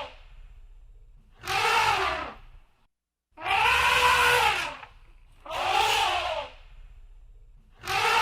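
Elephant trumpeting: a run of short calls, each about a second long, rising then falling in pitch, with brief pauses between them; the call in the middle is the longest.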